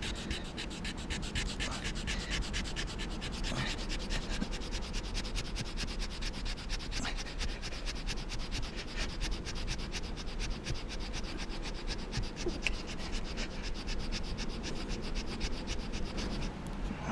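Fire plow: a wooden stick rubbed rapidly back and forth along a groove in a dry wooden log, a steady scraping in quick, even strokes. The groove is already smoking as the friction heats the wood dust toward an ember. The strokes stop near the end.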